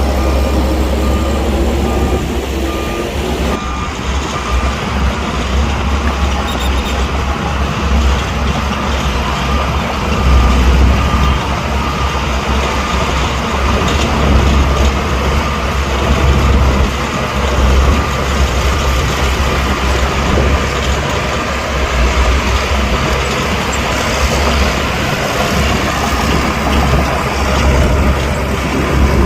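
Heavy diesel earthmoving machinery running loud and low. A reversing alarm beeps steadily during the first few seconds.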